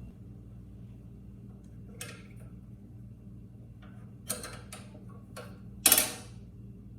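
Straightened steel bail bar of a push lawn mower being tried on the handle: a few scattered metallic clicks and clacks, the loudest about six seconds in.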